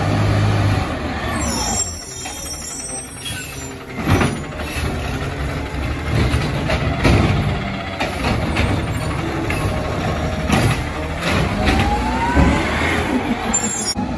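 McNeilus garbage truck's engine running as it drives slowly up the street, with several sharp air-brake hisses and clunks along the way.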